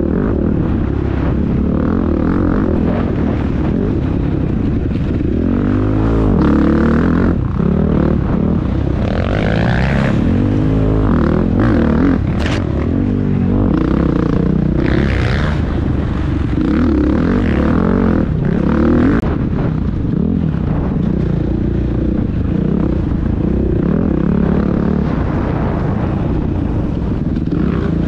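Dirt bike engine being ridden hard off-road, its pitch rising and falling over and over as the throttle opens and closes. A couple of sharp knocks stand out, about twelve and nineteen seconds in.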